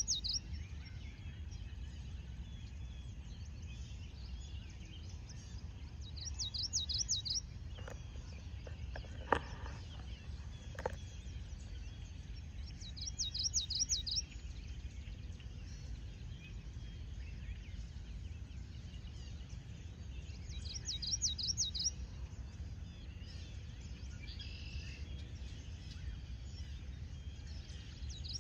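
A songbird repeating the same short song phrase of quick high notes about every seven seconds, over a steady low background rumble. A few sharp clicks come in the middle.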